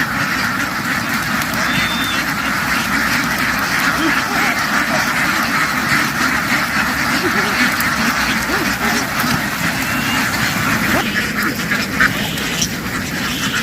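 A large flock of domestic ducks quacking all together in a dense, continuous din.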